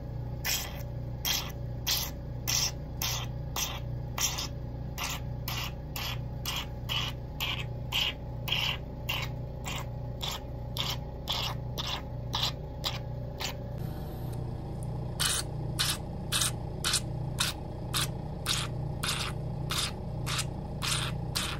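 Hydrafacial machine's handpiece suctioning over facial skin: a steady low pump hum with short hissing sucks about twice a second, pausing briefly once near the middle.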